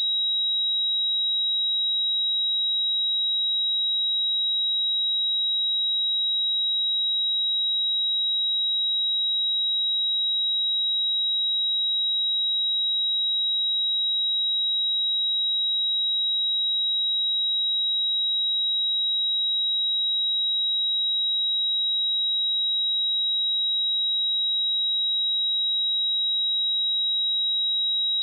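A steady pure 3835 Hz sine-wave test tone, a single high-pitched whistle-like note held at constant level with no change in pitch.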